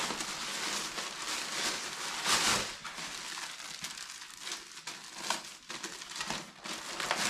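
Plastic packaging bag crinkling and rustling as it is handled and opened, loudest about two and a half seconds in.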